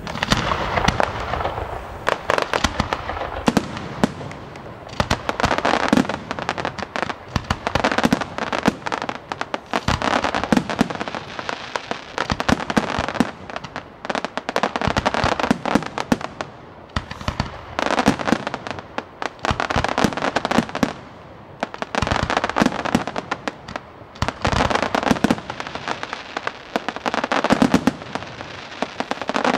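Fireworks display: a continuous barrage of bangs and dense rapid crackling, swelling in waves about every two seconds.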